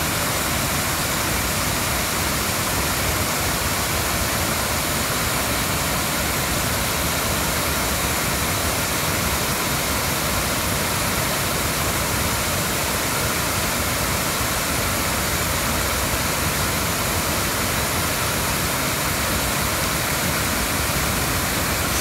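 Steady rush of a wide curtain waterfall, many thin streams of water falling over a rock face into a pool.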